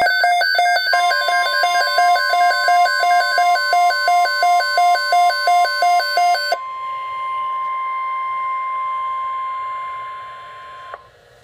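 Weather-radio alert: a steady high attention tone, the 1050 Hz warning alarm tone, with an electronic alarm beeping in a two-tone pattern about twice a second over it. The beeping stops about six and a half seconds in, and the steady tone fades out near the end.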